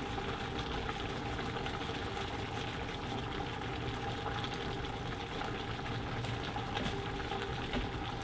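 Pot of lamb curry simmering on an induction hob: a steady bubbling with a faint steady hum underneath.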